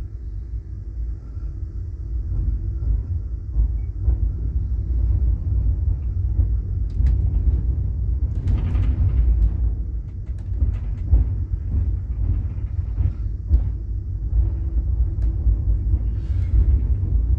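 Low, steady rumble of a passenger train rolling along, heard from inside a carriage, with scattered clicks and knocks over it.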